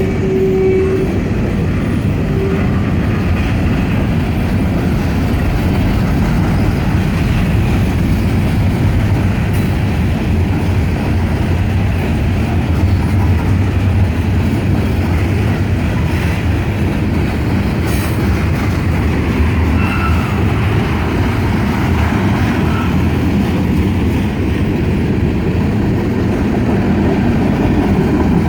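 Freight train cars rolling past with a steady, continuous rumble and clatter of steel wheels on rail. A short steady tone sounds in the first second.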